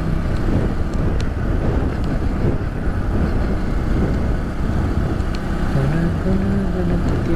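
A vehicle driving on the road, with steady engine and road noise. A little before the end, the engine note drops and then rises again.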